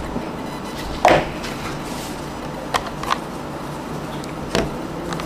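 A CPU's clear plastic clamshell tray and paper leaflet handled: a few short clicks and taps, the loudest about a second in.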